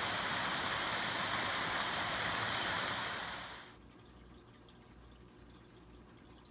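A little waterfall running steadily as river water pours over a low dam spillway. It fades out about three and a half seconds in, leaving only a faint low hum.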